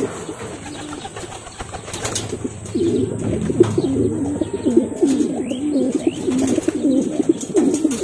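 Domestic racing pigeons cooing in the loft: low, warbling coos that start about three seconds in and carry on. A single sharp knock sounds just before, about two seconds in.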